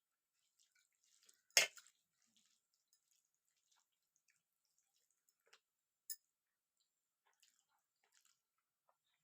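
Faint wet eating sounds of rice with dal and vegetables being eaten: scattered soft clicks and squishes, with one louder click about a second and a half in and another about six seconds in.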